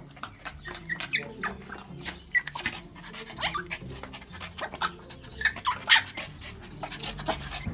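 Small shaggy dog whining in short high cries and sniffing quickly as it reaches for a baby chick.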